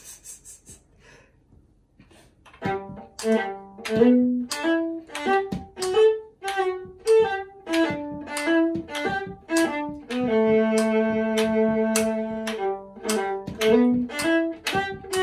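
Viola bowed solo: after a near-quiet start it launches about two and a half seconds in into a brisk tune of short detached notes, with one note held for about two seconds past the middle before the quick notes resume.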